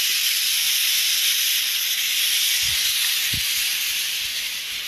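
Steady high-pitched hiss throughout, with two faint low thumps about three seconds in.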